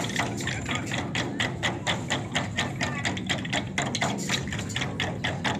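A 24 Festive Drums ensemble: many large Chinese barrel drums struck together with sticks in a fast, even beat of several strokes a second.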